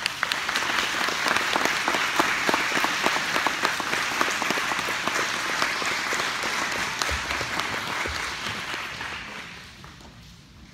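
Audience applauding, a dense clatter of many hands clapping that holds steady and then dies away near the end.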